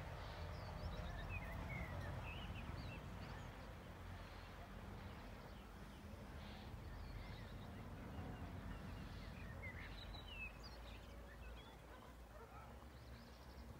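Faint, scattered chirps of small birds over a low, steady outdoor rumble.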